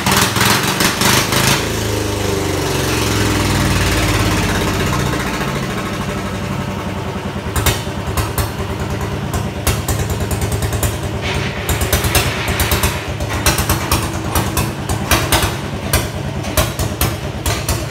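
A farm tractor's engine running, its speed rising and falling for the first few seconds, then settling to a steady, even beat with occasional sharp knocks. The engine is belching heavy exhaust smoke.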